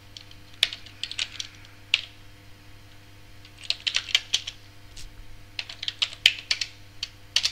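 Computer keyboard typing: a few scattered key clicks in the first two seconds, then a quicker run of keystrokes from about three and a half seconds in. A faint steady electrical hum runs underneath.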